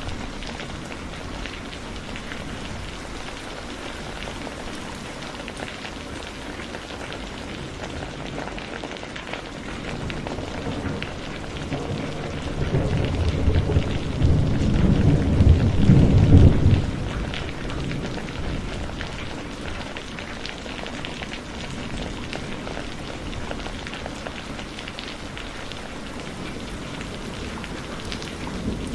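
Heavy rain falling steadily, with a roll of thunder that builds about a third of the way in, rumbles loudest near the middle and fades away.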